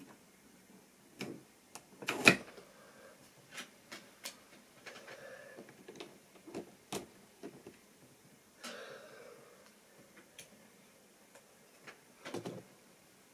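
Irregular clicks and knocks of a model railway steam locomotive being handled by hand and set down on the track, the sharpest knock about two seconds in and another cluster near the end.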